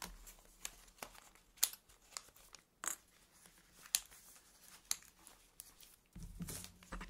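Hands handling a handmade paper journal: paper rustling and crinkling, with scattered sharp clicks as the sewing clips are taken off. A louder low rumble starts near the end.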